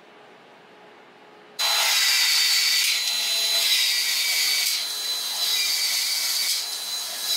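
A cordless PEX expander tool running as it widens PEX pipe for a fitting: a loud, hissing power-tool whine starts suddenly about one and a half seconds in and runs on with slight dips and swells.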